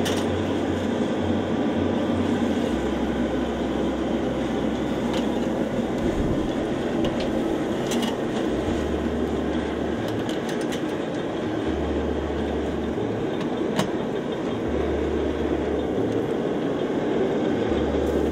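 Motor-driven multi-skewer rotisserie running steadily over a charcoal kettle grill, a constant mechanical whirr with a few faint clicks.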